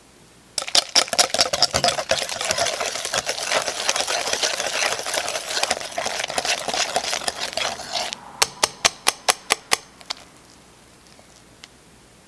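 Wire balloon whisk beating a creamed butter, sugar and vanilla mixture in a glass bowl: fast, continuous clicking and scraping of the wires against the glass. It stops about 8 seconds in and is followed by about eight quick, evenly spaced taps of the whisk on the bowl.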